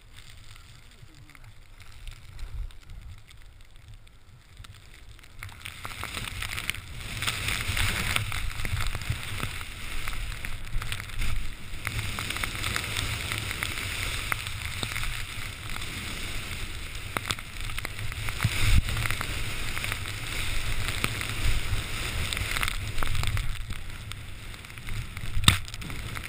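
Skis running through deep powder snow: a rushing hiss of spraying snow over a low rumble of wind on the microphone, growing louder about six seconds in, with a few sharp knocks.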